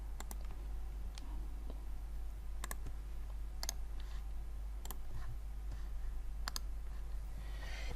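Computer mouse clicking: about six single, sharp clicks spaced a second or more apart, over a faint steady low hum.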